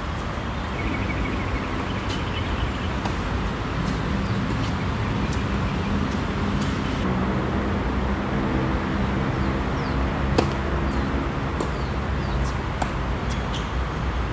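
Tennis ball being hit and bouncing on an outdoor hard court: a scatter of sharp pops, the loudest about ten seconds in. Under them is a steady low rumble of city traffic, with a few faint bird chirps.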